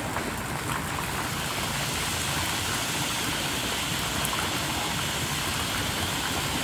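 Steady splashing of thin fountain jets arcing from the pool rim and landing in the water, a continuous even patter.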